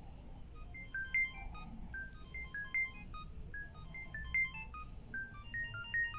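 An Alcatel OT-2005D ringtone played through a Samsung GT-B7722i phone's loudspeaker: a quick melody of short, high beeping notes that starts just under a second in.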